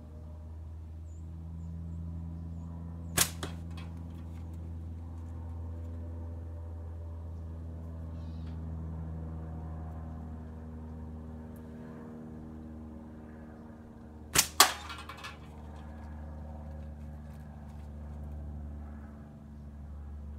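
Two slingshot shots from a pickle-fork slingshot banded with TheraBand Gold flat bands, about 11 seconds apart. Each is a sharp snap of the bands on release, followed a split second later by a smaller knock as the 3/8-inch steel ball strikes the target. The second shot is the louder. A steady low hum runs underneath.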